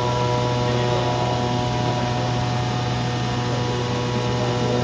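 CNC oscillating-knife cutting machine running, a steady mechanical hum with several constant tones over a low drone.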